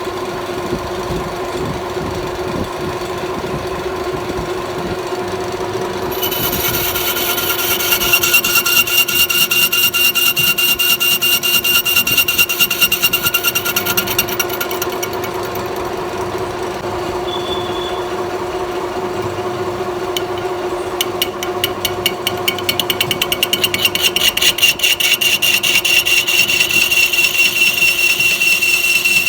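Metal lathe running with a steady hum. Twice, from about six seconds to fifteen and again from about twenty-one seconds, the cutting tool bites into the workpiece, adding a high-pitched ringing tone and rapid ticking, and the sound gets louder.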